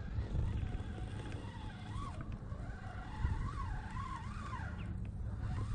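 Fishing reel's drag squealing, wavering up and down in pitch as a hooked fish pulls line off a bent trolling rod, over a low steady rumble.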